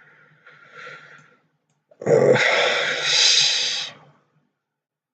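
A person breathing out heavily close to the microphone: a faint breath, then a louder breathy rush lasting about two seconds.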